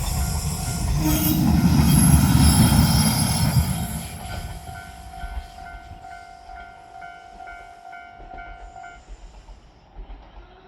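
A train runs through a railway level crossing, loudest two to three seconds in and fading by about four seconds. The crossing's warning bell keeps ringing in an even, pulsing pattern, then stops about nine seconds in, the sign that the crossing is clearing behind the train.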